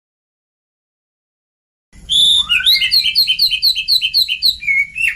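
Oriental magpie-robin song on a tutor recording. It starts about two seconds in, after silence, with a rising note, then runs into a fast string of repeated high notes, about five a second.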